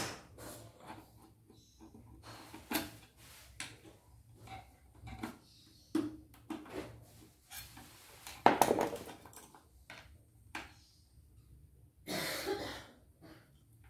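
A screwdriver and hands working on the metal needle and presser-foot mechanism of an opened embroidery machine: scattered light clicks, taps and short scrapes, with a longer rasping scrape about two-thirds through and another near the end.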